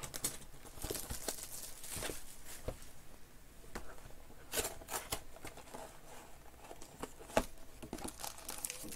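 Hands tearing open a cardboard trading-card hobby box: cardboard tearing and scraping, with the packaging crinkling and a few sharper clicks, the loudest about seven seconds in.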